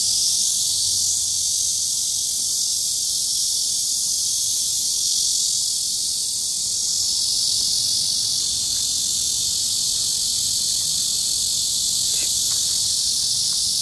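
A chorus of cicadas buzzing in a loud, steady, high-pitched drone.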